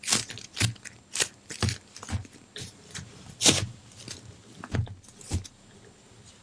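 Giant foam squishy toy being squeezed and handled close to a microphone: a string of short, irregular scrunching and rubbing sounds, the loudest about three and a half seconds in, thinning out near the end.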